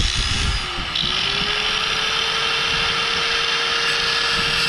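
Handheld power tool motor running at high speed, working on metal, with a steady whine and a loud gritty hiss; the pitch sags briefly about a second in, as if under load, then holds steady.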